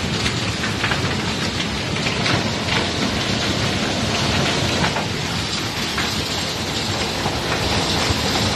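Hail mixed with heavy rain pelting paving stones and lawn: a dense, steady hiss full of sharp ticks from hailstones striking.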